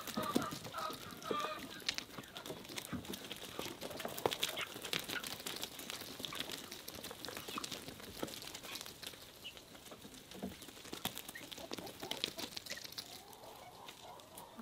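Chickens clucking in the first second or so, then scattered light clicks and crunches of gravel as they walk and peck over the stony ground, with another faint call near the end.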